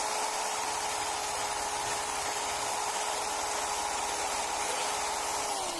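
Electric drill spinning a twisted-wire brush against the rusty steel blade of an old crosscut saw, stripping rust: a steady motor whine over a dense scrubbing hiss. Near the end the trigger is released and the motor winds down, its pitch falling.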